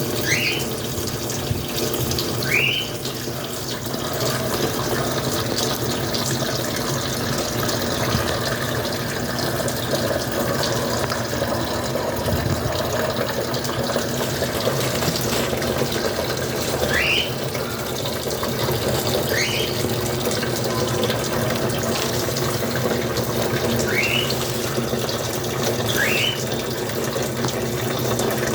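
Washing machine filling with water: a steady rush of running water over a low hum. Six short rising chirps cut in now and then.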